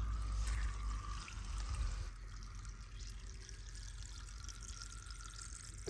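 Faint trickling water over a low, steady rumble.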